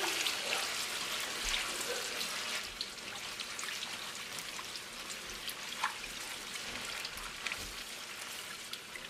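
Tomato paste frying in a large pot of hot oil: a steady crackling sizzle with scattered small pops, a little louder in the first couple of seconds, as it is stirred with a wooden spoon.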